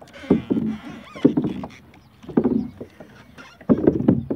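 Water slapping and knocking against a kayak's hull, heard close up, in sudden hits about once a second.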